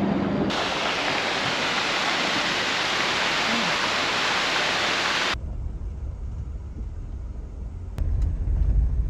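Steady rushing of a roadside waterfall, a loud even hiss that stops abruptly about five seconds in. It is followed by a low rumble that swells near the end.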